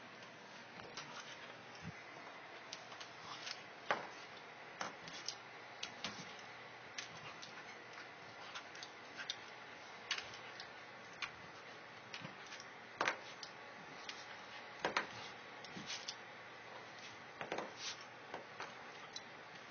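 Scattered light clicks and taps at uneven intervals, over a steady faint hiss, as a corgi and a cat play.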